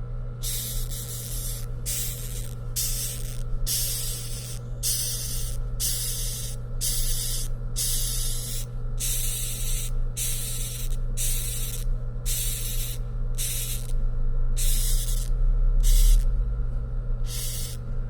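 Xylotrupes pubescens rhinoceros beetle stridulating in a series of short hissing pulses, about one a second, its defensive noise when disturbed. A steady low hum runs underneath.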